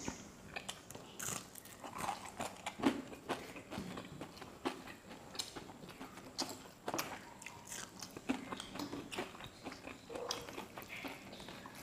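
Close-miked biting and chewing of crisp-fried hilsa fish, with irregular crunchy clicks and wet mouth sounds.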